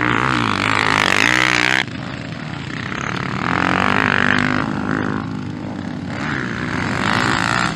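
Dirt bike engine revving on a motocross track, its pitch climbing and falling again and again as the rider accelerates and backs off. The sound breaks off abruptly about two seconds in and picks up again.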